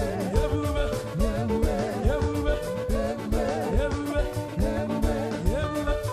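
Upbeat worship band music with a steady drum beat and a wavering melodic lead line over held chords.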